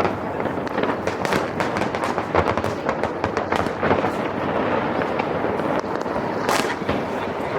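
New Year aerial fireworks going off in a dense barrage: many bangs and crackles overlapping with no pause, one louder bang about six and a half seconds in.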